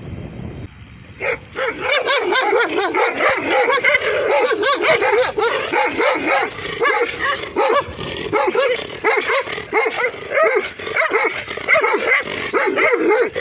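A dog barking over and over in quick succession, several barks a second, starting about a second in and keeping on.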